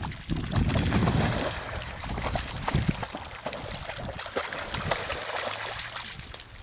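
Dogs splashing through shallow water, with irregular splashes and sloshing.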